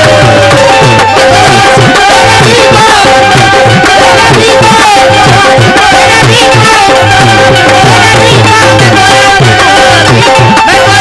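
Qawwali accompaniment between sung lines: a harmonium holding steady notes over a brisk, regular beat on hand drums.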